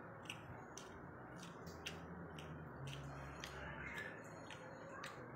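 Close-miked chewing of a battered, fried Korean pepper: scattered soft crunchy clicks, about a dozen, over a faint steady low hum.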